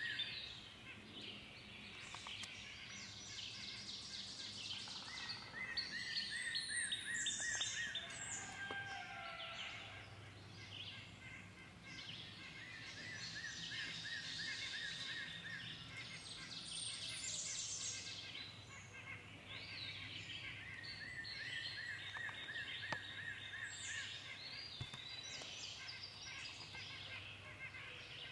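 Several songbirds singing, their phrases repeating every few seconds, some lower and chirpy and others high and whistled, over a faint steady background hum.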